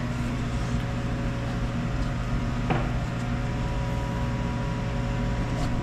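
Steady mechanical hum, with a single light click almost three seconds in.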